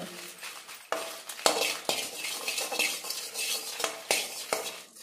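Steel spoon stirring dried red chillies in a metal kadai, scraping and clinking against the pan several times.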